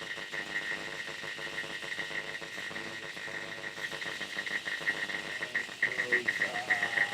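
DIY Triwave Pico drone synthesizer playing a buzzing, rapidly pulsing noise drone with a steady high whine. About six seconds in, a tone sweeps up in pitch and then holds.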